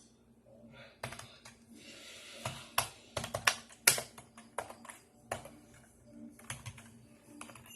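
A computer making irregular clicks and taps, some in quick clusters and loudest a few seconds in, over a steady low hum.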